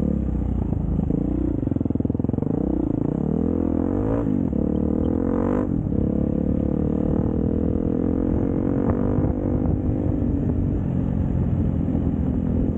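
Dirt bike engine running under the rider, its revs dipping and rising over the first few seconds, with a quick climb in pitch that breaks off about five and a half seconds in. It then runs at a steady pitch as the bike picks up speed on the open trail.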